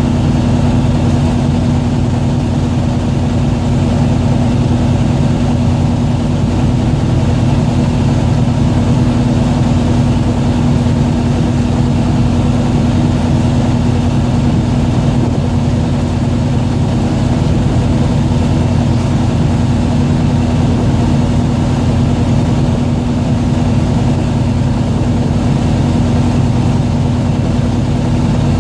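A fishing boat's engine running steadily, a constant low hum with one strong droning tone.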